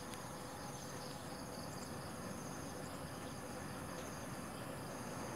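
Quiet background of insects chirping in steady high-pitched trills, over a low even hiss.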